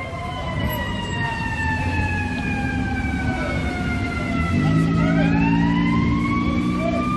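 Emergency-vehicle siren in a slow wail, its pitch falling for about five seconds and then rising again. A low steady drone joins it about four and a half seconds in.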